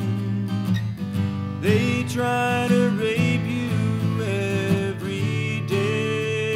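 Instrumental break of a folk song: strummed acoustic guitar with a melody line over it and no singing.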